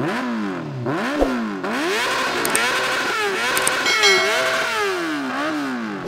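Sport motorcycle engine revved in a series of quick throttle blips, its pitch rising and falling again and again.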